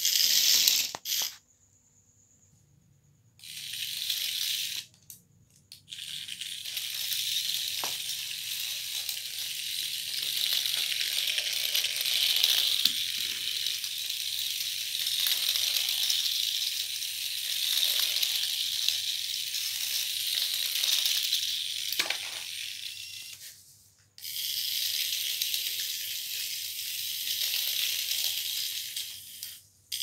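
Remote-control toy snakes running, a rattling, scraping clatter of their small gear motors and jointed plastic body segments moving over a tile floor. It stops and starts again a few times.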